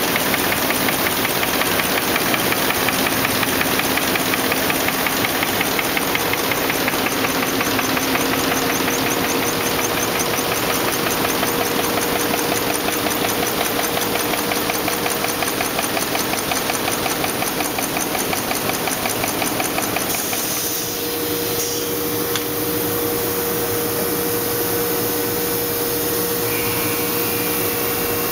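Envelope folding and gluing machine running at speed, a fast, even mechanical clatter from its feeder and rollers over a steady hum. About twenty seconds in, the rapid rhythm fades and a smoother machine hum remains.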